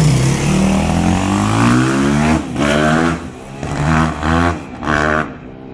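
Yamaha YZ250 four-stroke motorcycle engine through an Akrapovic exhaust, revved up in a rising climb for about two and a half seconds, then blipped three times in short bursts before settling back toward idle.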